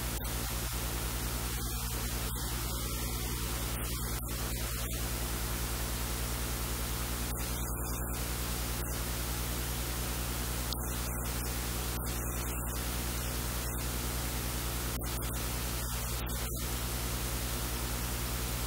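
Steady loud hiss with a low mains hum underneath, electrical noise on the recording.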